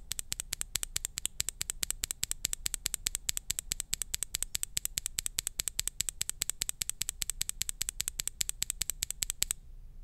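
A KBDIY Fantasy Virus / Poison mechanical keyboard switch under a PBT keycap, pressed over and over with a fingertip: a fast, even run of sharp clacks, about eight a second, that stops shortly before the end.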